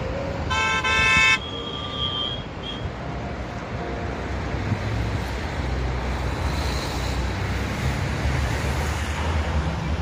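A vehicle horn honks twice in quick succession about half a second in, the loudest sound, followed by a fainter high beep about two seconds in. A steady low rumble of road traffic and wind runs underneath.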